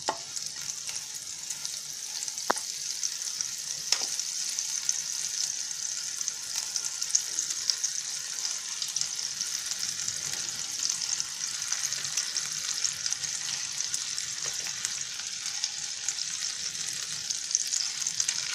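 Rolled crepes filled with cottage cheese frying in bubbling hot fat in a pan, a steady high sizzle throughout. Two light knocks sound about two and a half and four seconds in.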